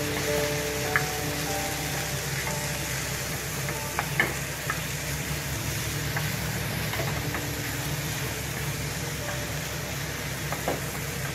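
Chicken pieces frying and sizzling in a pan, a steady sizzle with a few sharp clicks about a second in, around four seconds in and near the end.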